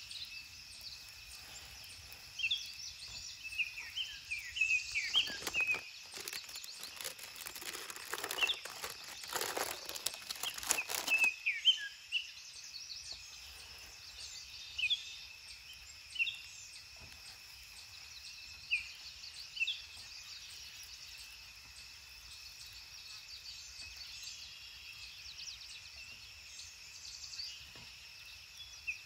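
Birds calling in short, repeated chirps over a steady high insect drone. Between about five and eleven seconds a louder crackling, rustling noise comes in, then stops.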